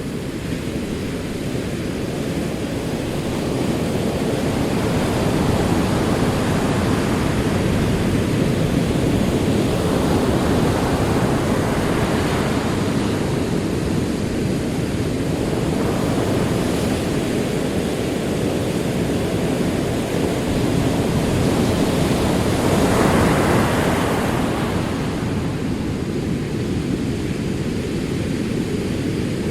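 Ocean waves rolling in on a shore, a continuous wash of surf that swells and subsides, with one louder wave breaking a little past two-thirds of the way through.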